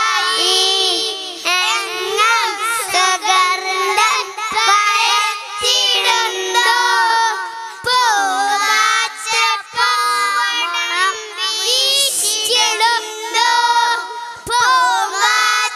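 A group of young boys singing a song together into handheld stage microphones, their high voices amplified.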